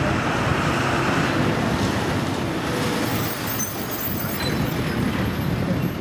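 Steady road traffic noise of a city street.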